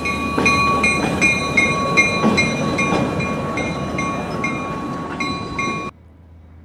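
Baldwin S12 switcher locomotive rolling past close by, its diesel engine running with a steady rumble, and its bell ringing steadily at about two and a half strokes a second. The sound cuts off abruptly about six seconds in.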